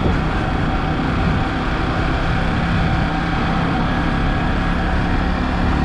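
Sport motorcycle's engine running steadily while riding along at low speed, with a steady rush of wind noise over it.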